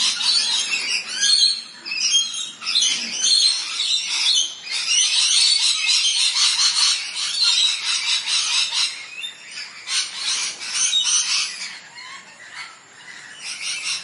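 A flock of blue-headed parrots calling: many short, overlapping chirps and squawks in a steady chatter.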